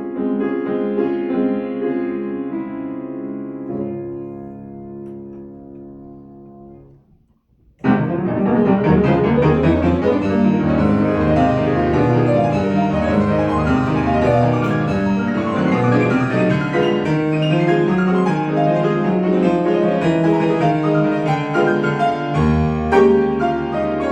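Solo piano: held chords ring and fade away over several seconds, then after a short pause a loud passage of fast, dense notes starts suddenly and runs on.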